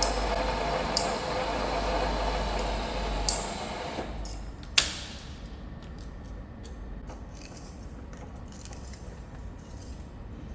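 Milling machine boring the steel eye: a steady machining noise with a sharp tick about once a second that stops about four seconds in. A single sharp metallic clack follows, then faint small clinks.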